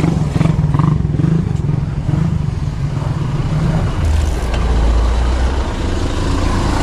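Motor vehicle engines running close by in road traffic, with a deeper engine rumble taking over about four seconds in.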